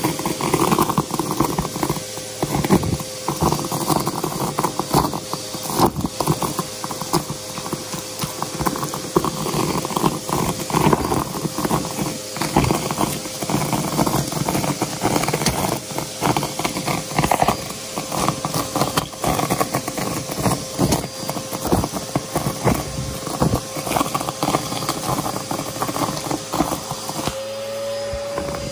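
Aeroswift vacuum cleaner running as it sucks up a crunchy debris mix: a steady motor whine under a dense, irregular crackle and rattle of debris being pulled in. Near the end the crackling stops and the whine rises slightly.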